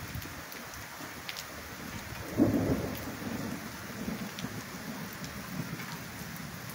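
Steady rain falling, with a roll of thunder that breaks in about two and a half seconds in and rumbles on for a few seconds.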